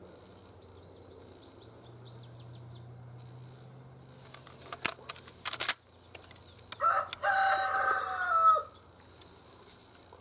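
A rooster crows once, about seven seconds in: a long call held on one pitch that falls away at the end. Before it comes a short run of sharp clicks and knocks, and small birds chirp faintly during the first three seconds.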